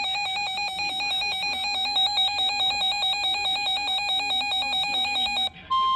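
Emergency alert alarm tone: a buzzy pitched beep pulsing rapidly and evenly, cutting off about five and a half seconds in. After a brief break, a steady single high tone starts just before the end, like the weather radio warning alarm tone.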